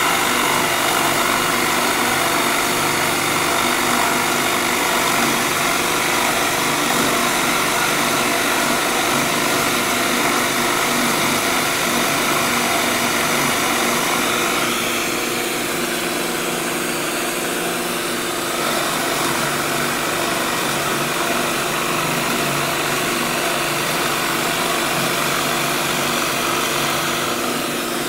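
A shop vac and a drill press running together: a steady machine whine with several held tones over a rushing noise. The sound shifts slightly about halfway through.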